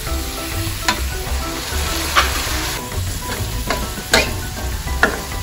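Soy sauce hitting a hot metal wok of sautéed ground pork and flaked milkfish, sizzling, while a metal spoon stirs and scrapes the mixture with sharp clinks against the wok. The sizzle swells about two seconds in.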